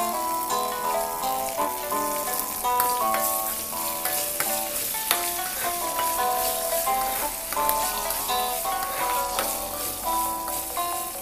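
Peanuts, garlic and green chillies sizzling as they fry in oil in a kadai, stirred with a steel ladle that clicks and scrapes against the pan. Background music of plucked-string notes plays throughout.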